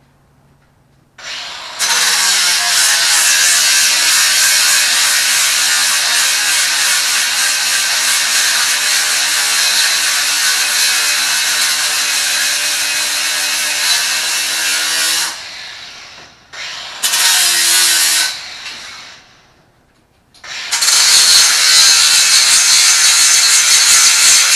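Ryobi 18V cordless angle grinder running and grinding under load. It starts about a second in and runs steadily for some fourteen seconds before winding down. A short second run follows, then it starts again for the last few seconds.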